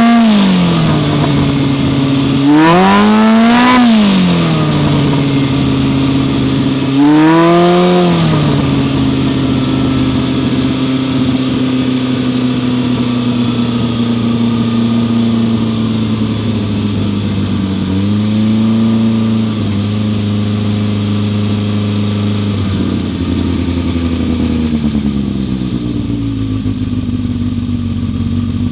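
Polaris RZR side-by-side engine revved in three quick blips, its pitch rising and falling each time, then settling into a steady idle with a brief small rise in engine speed later on.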